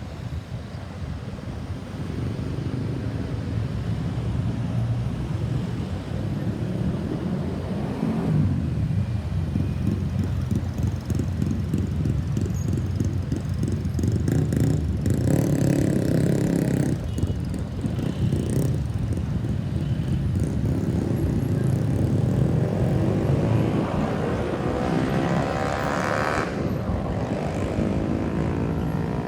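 Road traffic: a steady rumble of engines and tyres, swelling several times as vehicles pass, with no siren sounding.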